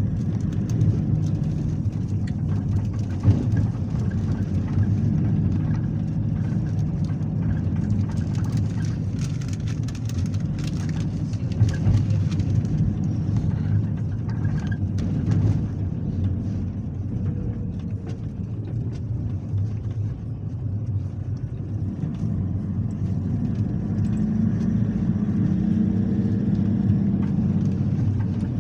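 Cabin noise of a car driving on a dirt road: a steady low engine and tyre rumble, with scattered brief knocks and rattles from bumps. The engine note rises a little in the last few seconds.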